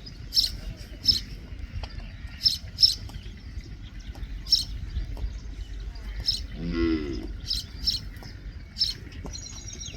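Common myna calling: a string of short, harsh, high-pitched clicks and chatters every half second or so, with a held whistle near the end. About two-thirds of the way through, a low drawn-out call rises in pitch beneath them.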